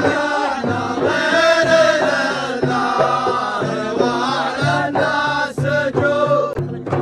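Middle Eastern music: a voice chanting a melody in long bending phrases over low held notes.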